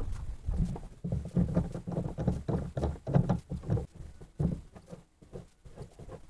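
Irregular knocks, clunks and thuds of hands handling fishing gear at a kayak's rod holder close to the microphone, busiest for the first four seconds or so and then thinning out.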